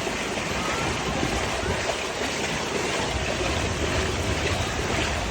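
Floodwater rushing, a steady even noise.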